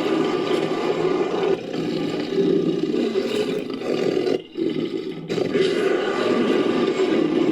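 Sound-effect roaring and growling of an ape-like caveman monster, mixed from a human voice and film animal and creature roars, continuous apart from a short break about halfway through.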